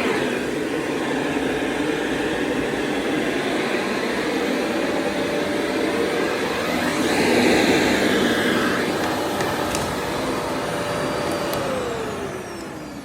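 AmazonBasics bagless vacuum cleaner running on window curtains, a steady whine over the rush of suction air, louder for a moment about seven seconds in. Near the end it is switched off and the whine falls in pitch as the motor spins down.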